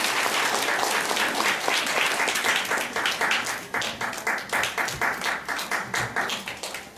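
Audience applauding. The dense clapping thins out into scattered single claps over the second half and dies down near the end.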